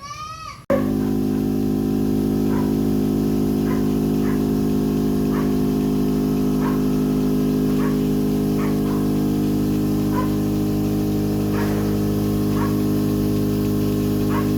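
A steady machine hum starts abruptly just under a second in and runs on. Short, faint high chirps come over it about once a second.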